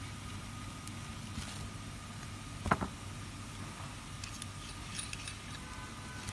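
Metal faucet parts handled by hand: one sharp knock almost halfway through, then a few light clinks, over a steady background hum.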